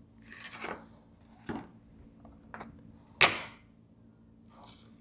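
A few light clicks and taps as an LG G6 phone frame and tools are handled on a wooden cutting board, the sharpest about three seconds in, over a faint steady hum.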